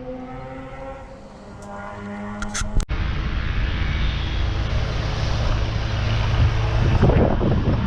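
An engine runs steadily with a humming note. About three seconds in, an abrupt cut brings a louder zero-turn mower engine running under load, with a low hum and rushing noise that build toward the end.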